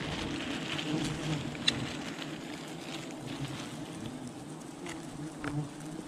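Many wild honeybees buzzing around their nest: a steady, wavering drone of wings, with a few faint clicks about a second and a half in and near the end.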